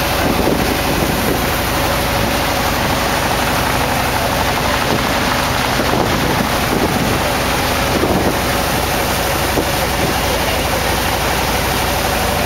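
Small riverboat's engine running steadily under way, with wind buffeting the microphone and water rushing past the hull.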